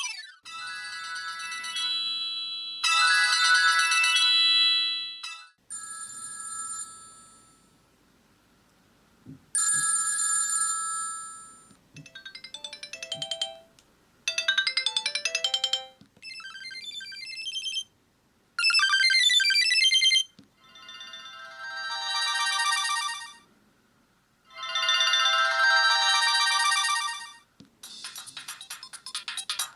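Sony Ericsson T610 polyphonic ringtones played one after another, each a short synthesized melody a few seconds long, separated by brief pauses. The tones are bright and thin, with no bass.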